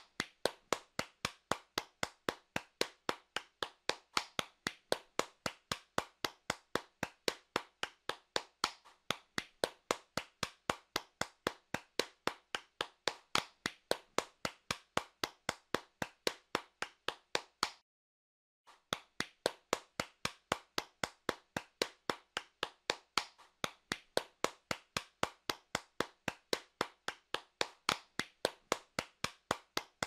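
Hands clapping in a steady, even rhythm of about four to five sharp claps a second, broken once by a pause of under a second a little past halfway.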